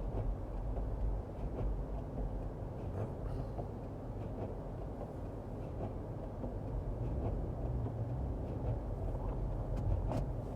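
Steady low road and engine rumble of a car being driven, heard from inside the cabin, with one sharp click near the end.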